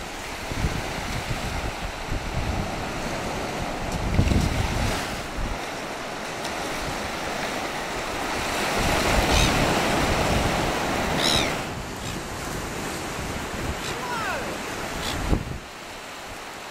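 Surf breaking and washing up a sandy beach, with gusts of wind buffeting the microphone.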